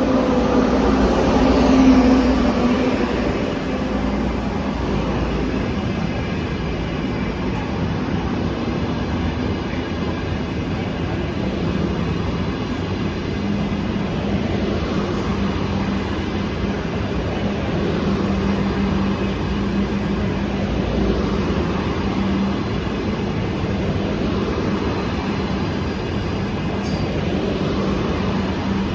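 A train passing along the line, a steady loud rumble of wheels on rails with a humming tone underneath. It is loudest about two seconds in, then runs on evenly.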